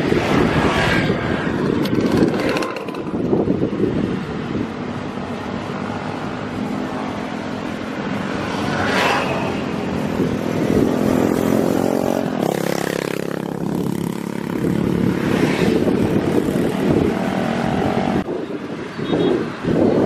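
Road traffic passing: continuous motor-vehicle noise, with one engine's hum rising and fading clearest about ten to fourteen seconds in.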